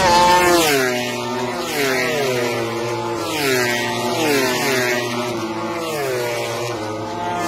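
MotoGP racing motorcycles passing one after another at full throttle. Each engine's high-pitched note falls in pitch as the bike goes by, several times in a row.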